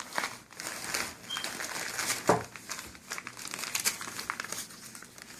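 Packaging crinkling and rustling as throwing knives are unwrapped by hand, with one louder crackle a little over two seconds in.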